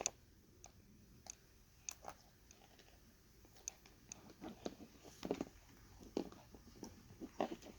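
Scattered small clicks, taps and rubbing of hands handling the plastic parts of a pair of headphones during a hinge repair, coming thicker in the second half.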